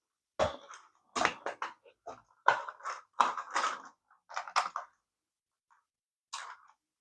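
Hard plastic parts of a toy being handled on a bench: a quick run of irregular clicks and clatters, then one more click near the end.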